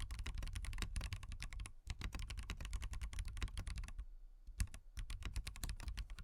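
Fast typing on a SWAGKEYS Transition Lite mechanical keyboard with Bsun Bumblebee tactile switches and no foam inside: a dense run of rapid keystrokes with a brief pause near two seconds in, thinning to a few separate strokes after about four seconds.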